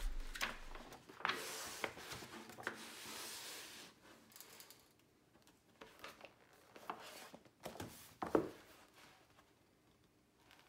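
Paper pages of a large softcover manual riffling as they are leafed through quickly, then a few quieter rustles and a soft thump about eight seconds in as the book is turned over and laid flat.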